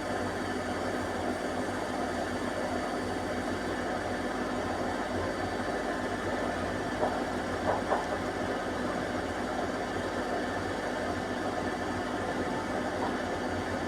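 Balay washing machine in its 1200 rpm final spin with an unbalanced load: a steady hum of motor and drum, with a few short knocks about seven to eight seconds in.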